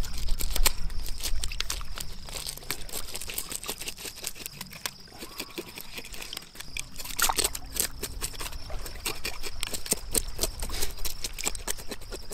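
Knife blade scraping the scales off a black crappie from tail to head, a rapid run of short scratchy strokes. Water laps at the rocky shore underneath.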